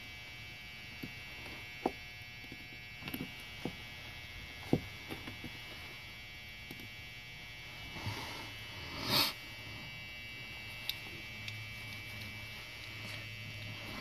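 Scattered small, sharp clicks and ticks of lock pins and stiff springs being fitted by hand into the pin chambers of an ASSA Twin 6000 brass cylinder, with one brief rush of noise about nine seconds in, over a faint steady hum.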